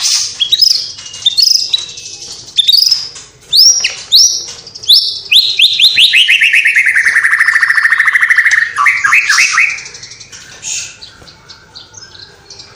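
White-rumped shama singing a loud, varied song of quick whistled notes and glides. In the middle comes a long fast trill that slides down in pitch, and softer scattered notes follow near the end.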